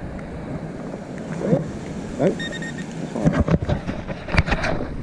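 Wind buffeting the microphone, with a short run of high electronic beeps about halfway through from a metal-detecting pinpointer checking the dug soil. Several sharp knocks and scrapes follow in the second half as the soil and the find are handled.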